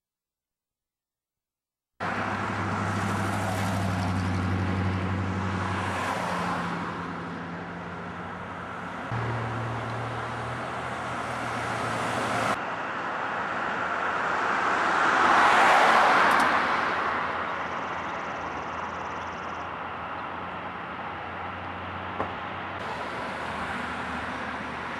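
Silence for about two seconds, then road traffic: engines running and vehicles passing, with one passing close about two-thirds of the way through, its noise swelling and fading.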